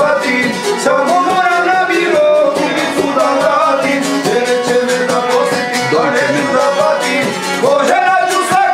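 Men singing a folk song together, accompanied by a violin and a long-necked lute.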